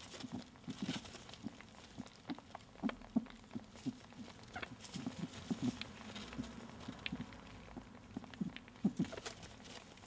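Rabbit kits jostling under their nursing mother in a straw nest: soft, irregular taps, thumps and rustles of fur and straw as they scramble for the teats.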